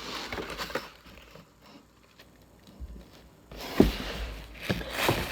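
Cardboard shipping box being handled and opened: light rustles and clicks, then a quiet stretch, then a sharp knock with a low thud about four seconds in and a couple more knocks near the end.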